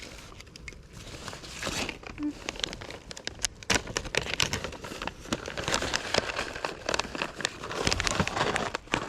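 Crinkling and rustling of packaging being handled, faint at first and busier from about a second and a half in, as food is got out to feed animals.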